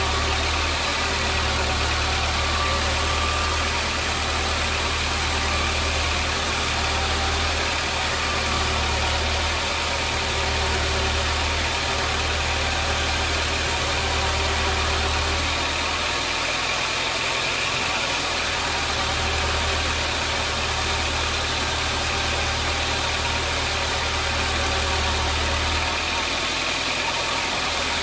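Sawmill machinery running steadily, with a low hum that drops away briefly a few times.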